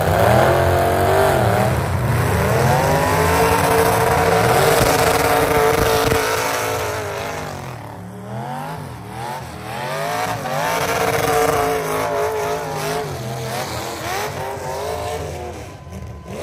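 Demolition derby cars' V8 engines revving hard, their pitch climbing and falling again and again. The revving eases about halfway through, then picks up again.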